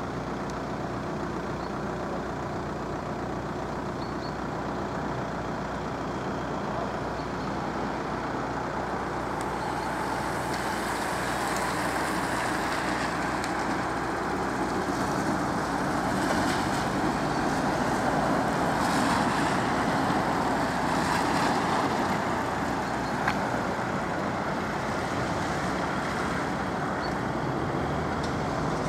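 Motor vehicles of a cycling race convoy, a police escort car and team cars, running along the road: a steady hum of engines and tyres that slowly grows louder toward the middle and again near the end.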